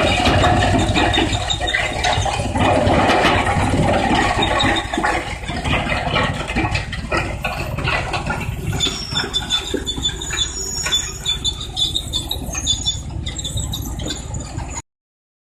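Large industrial wood crusher running and breaking up wood, a dense mechanical din full of knocks and crackles. About halfway through, a high squeal joins in. The sound cuts off suddenly near the end.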